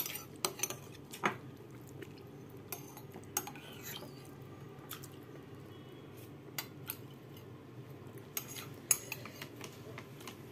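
Scattered light clicks and clinks of an aluminium foil food tray and sauce cup being handled on a glass tabletop, over a low steady hum.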